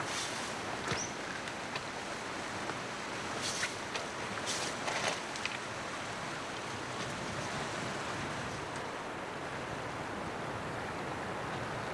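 Steady outdoor rushing noise, wind-like, with one short high chirp about a second in and a few scattered clicks between about three and a half and five and a half seconds in.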